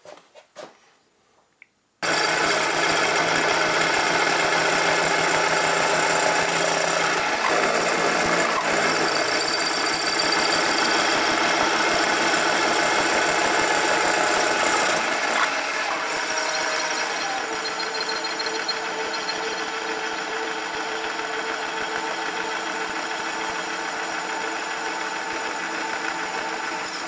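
Metal lathe turning a connecting-rod blank, with the cutting tool taking metal off the spinning bar. The running and cutting noise starts suddenly about two seconds in, holds steady, and eases a little about halfway through.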